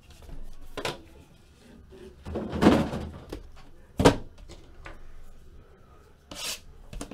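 Cardboard card boxes being handled, slid and set down on a table: a few dull thunks and knocks, the sharpest about four seconds in, with a short scrape before it.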